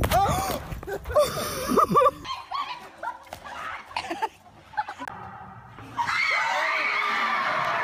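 Short shrieks and laughter, then a quieter stretch, and from about six seconds in the steady chatter and shouts of a group of people.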